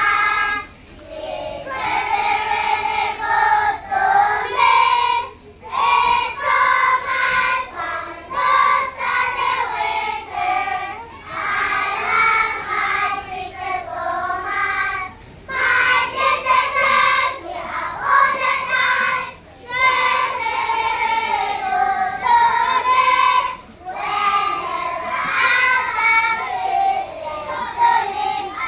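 A group of young children singing a song together as a choir, in phrases of about four seconds with short breaks between them.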